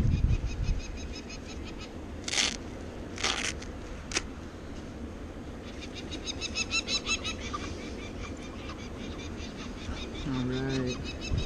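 Adult peregrine falcons giving their alarm call, a rapid, evenly repeated harsh cacking at about four notes a second, as they defend the eyrie against the intruder. It drops out for a few seconds in the middle, when three short rasping noises are heard, and picks up again about six seconds in.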